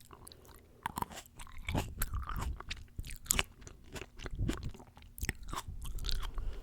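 Close-miked chewing of fresh fruit, a run of crisp crunching bites one after another.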